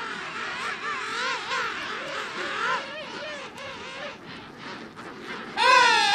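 Emperor penguin colony calling: many overlapping warbling calls. About five and a half seconds in, a much louder, closer call starts, swooping up and down in pitch.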